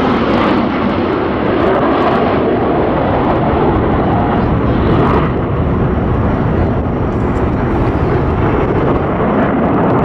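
Blue Angels F/A-18 Hornet jets flying overhead in formation: a loud, steady jet engine noise.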